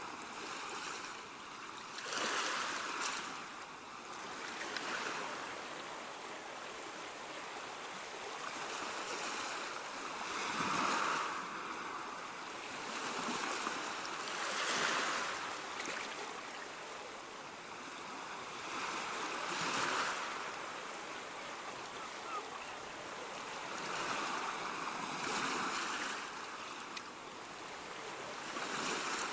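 Ocean surf: waves breaking and washing in, the rush of water swelling and easing every few seconds.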